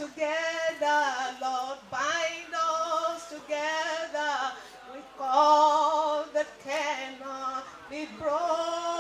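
A woman singing solo, with long held notes that waver with vibrato and short breaks between phrases; no instruments are heard.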